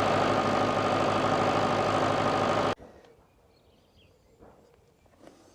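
International 785 tractor engine idling steadily, cut off abruptly about halfway through, followed by quiet with a few faint knocks.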